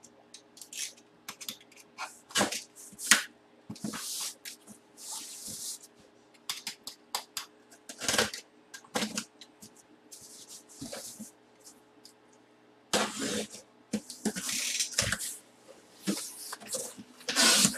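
A blade slicing through packing tape and corrugated cardboard, then the cardboard flaps being pulled open and rustled: a run of short, irregular scratchy rasps and rips with a few sharper clicks, over a faint steady hum.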